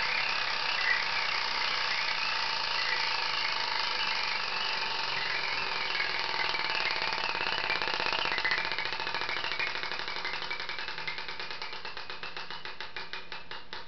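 Vintage 1950s 24-inch wooden carnival gaming wheel spinning against its clicker: the flapper chatters over the 60 pegs in a rapid, blurred run of clicks. From about nine seconds in the clicks separate and space out, down to about three a second, and grow fainter as the wheel coasts toward a stop.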